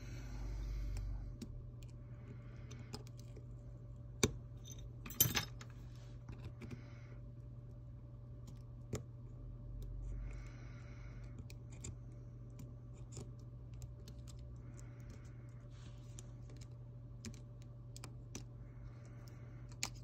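Scattered light clicks and taps of small hand tools and tiny screws being handled while an iPhone is taken apart, with two sharper taps about four and five seconds in, over a steady low hum.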